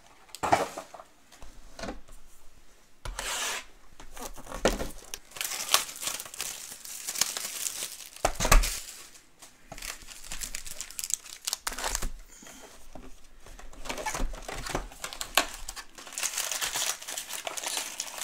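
Plastic wrapping torn and crinkled by hand as sealed football trading-card boxes are opened: irregular tearing rustles with a few sharp clicks, the loudest about eight seconds in.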